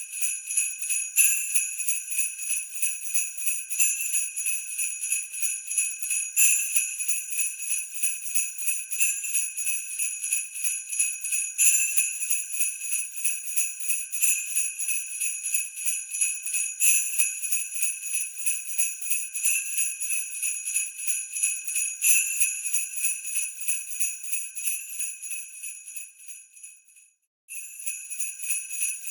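Sleigh bells jingling in a steady rapid shake, with a stronger accent every two and a half seconds or so. Near the end the jingling fades out to a moment of silence and then starts again.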